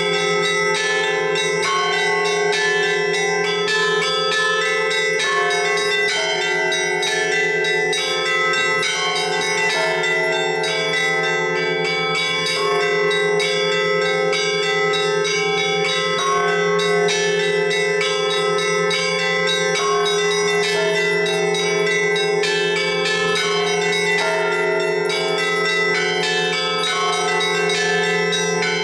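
Russian Orthodox church bells rung together in a continuous festive peal: the small bells chime rapidly and densely over the middle bells, with a low hum held steady underneath.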